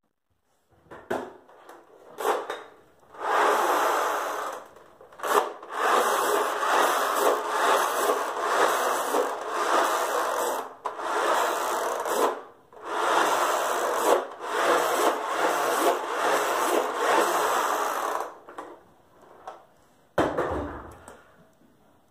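Dry rubbing and scratching noise in long stretches with short breaks, then a single thump near the end.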